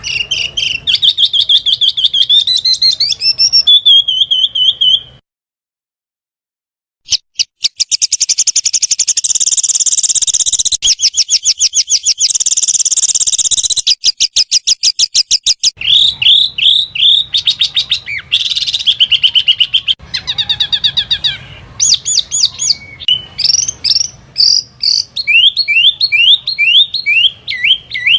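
Small songbirds giving loud, piercing rapid-fire trills and repeated sweeping whistled phrases, the sharp 'tembakan' bursts of song. Separate recordings follow one another, with about two seconds of silence roughly five seconds in.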